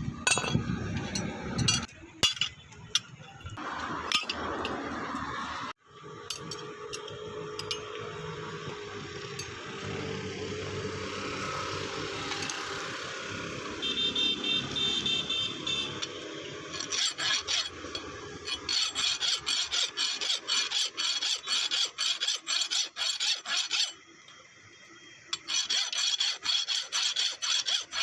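Hand file rasping on metal in rapid, evenly repeated strokes, with a short pause near the end. Scattered clicks and a steady hiss come before the strokes.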